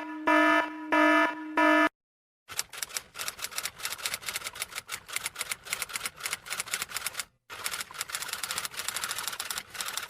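Four short, evenly spaced buzzy beeps, then after a brief pause a long run of rapid typing clatter, many keystrokes a second, broken once by a short gap.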